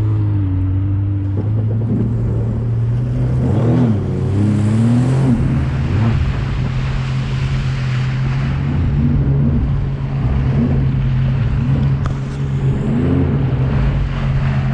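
Freshly rebuilt GTX jet ski engine running under way on the water, its pitch rising and falling a few times as the throttle changes, over a steady rush of water and wind.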